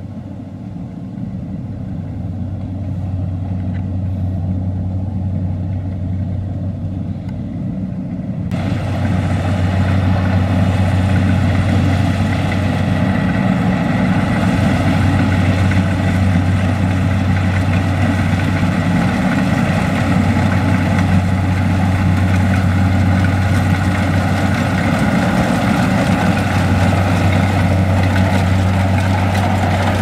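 Kubota DC-70 Plus rice combine harvester running steadily under load while cutting and threshing, with a constant engine hum under the clatter of its machinery. About eight seconds in, it jumps suddenly louder and noisier and stays that way.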